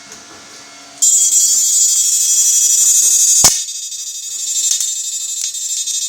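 An IGBT electric fish-shocking inverter machine is switched on at full power about a second in, giving a loud, high-pitched buzzing whine. A sharp crack comes a little after three seconds; the level then drops and builds back up.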